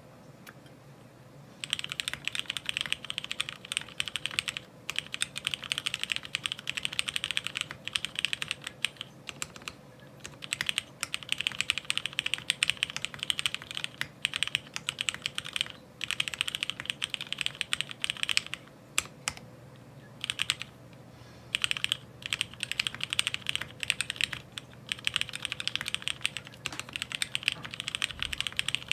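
Mechanical keyboard in a ceramic housing being typed on quickly: dense runs of key clacks in bursts of several seconds, broken by short pauses. The typing starts about two seconds in.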